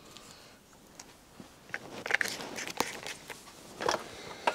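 Hands handling small hard items on a workbench: irregular clicks, taps and scratchy rustling, getting busier from about two seconds in.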